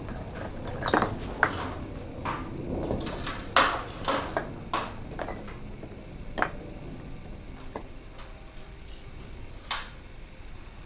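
Irregular sharp clinks and knocks of masonry work at a scaffold: metal tools, buckets and stones being handled and set down, each knock ringing briefly.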